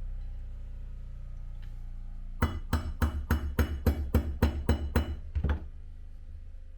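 A rapid run of about a dozen sharp hammer taps, roughly four a second, starting a couple of seconds in and stopping after about three seconds, over a low steady hum.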